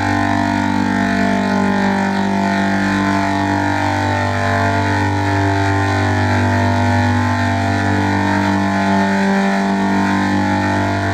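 A steady droning sound effect: a low hum with many held tones stacked above it, and a faint wavering shimmer in the upper tones.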